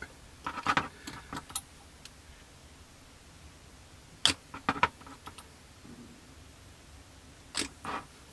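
Light clicks and taps of hands handling a glass bottle of liquid cement with a plastic screw cap and a plastic model-kit fuselage. They come in three short clusters, the sharpest click a little past the middle.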